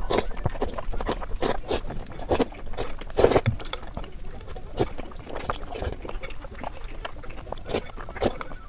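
Close-miked eating sounds: irregular wet chewing and lip-smacking clicks, with a longer, louder burst a little over three seconds in.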